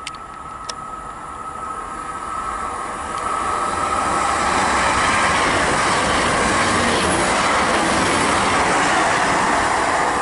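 Great Western Railway Class 800 IET bi-mode train passing through the station without stopping. The rush of its wheels on the rails builds over the first four seconds as it approaches, then holds loud and steady as it goes by.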